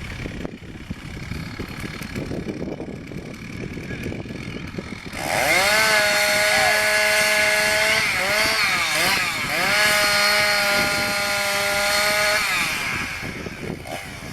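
Two-stroke chainsaw revving up suddenly about five seconds in, running at high speed while felling trees, dropping briefly and climbing again, then easing off near the end.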